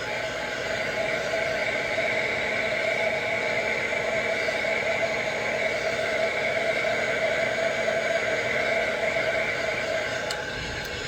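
Handheld hot-air heat gun running steadily, its fan blowing with an even whir as it shrinks heat shrink tubing over a soldered wire joint.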